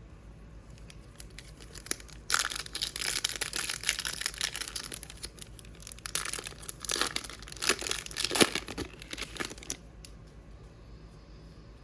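A hockey card pack's wrapper being torn open and crinkled in the hands, in crackly bursts starting about two seconds in and stopping near the end, as the pack is opened to get at the cards.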